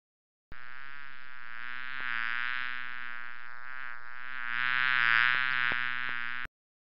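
A housefly buzzing in one steady, low buzz. It starts abruptly about half a second in, grows louder around five seconds, and cuts off suddenly near the end.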